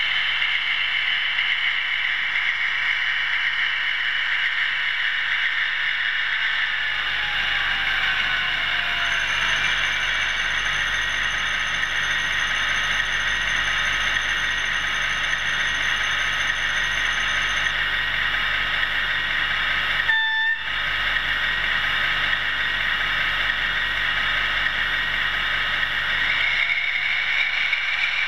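Steady mechanical whirring from an OO gauge model train on the layout, with a brief high tone about twenty seconds in.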